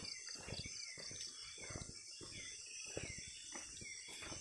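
Night tropical forest insect chorus: crickets trilling in a fast, even pulse over a steady high buzz, with a short falling chirp repeating about every half second. Irregular crunches and rustles of footsteps and handling on the forest floor run underneath.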